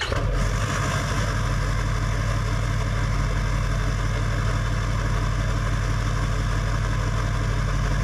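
Vehicle engine idling steadily just after starting up: an even low hum that holds without change.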